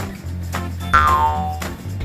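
Background music with a steady bass line, and about a second in a cartoon-style sound effect with a falling pitch glide.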